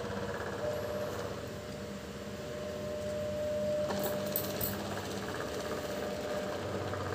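Pan-tilt Wi-Fi security camera's small motors whirring steadily as its dome head swings and tilts through the power-on self-calibration sweep, with a brief click about four seconds in.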